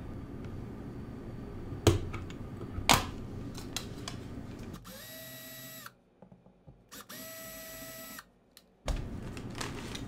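Black+Decker cordless drill/driver spinning in two short runs of about a second each, driving the screws at a wall outlet; each run rises quickly in pitch and then holds steady. Two sharp clicks come before it, about two and three seconds in.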